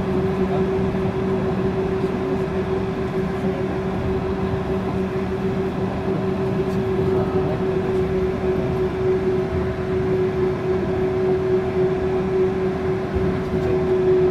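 Yurikamome rubber-tyred automated guideway train running at a steady speed, heard from inside the front car: a constant whine from the drive over a steady rumble of the tyres on the guideway.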